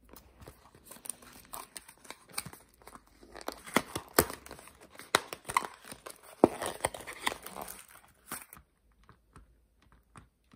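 A cardboard box of IKEA ÖVERMÄTT silicone food covers being handled and opened by hand: scraping, crinkling and many sharp taps as the end flap is pulled open and the covers slide out. The handling noise drops off suddenly after about eight and a half seconds, leaving a few faint clicks as a silicone cover is flexed.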